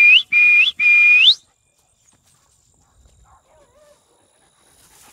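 Three short whistle blasts in quick succession, each held on one high note and flicking upward at its end, calling beagle puppies in.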